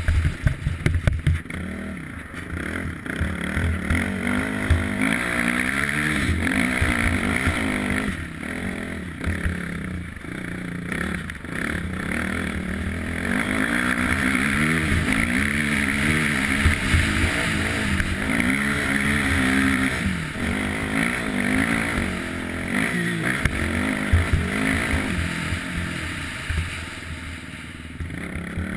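Quad bike (ATV) engine running under way, revving up and down again and again as it is ridden over a snowy track.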